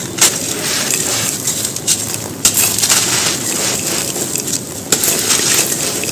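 Soft white cylinder-shaped stones being crushed and crumbling onto a dry floor: continuous crisp crunching, with sharper cracks just after the start, around two and a half seconds in, and about five seconds in.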